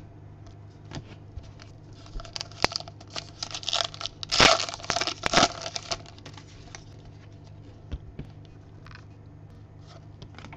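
A plastic baseball card pack wrapper being torn open and crinkled by hand. It makes a run of crackly tearing from about two seconds in until past six seconds, loudest around the middle. Before and after it there are a few light clicks as cards are handled.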